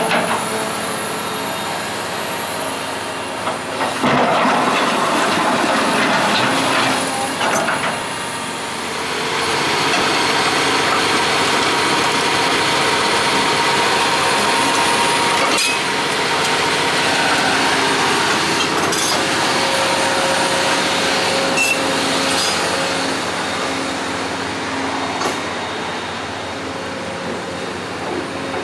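Cat 336E excavator's diesel engine running as the machine travels on its steel tracks, with track clanking and a few sharp knocks. It grows louder about ten seconds in as it passes close below.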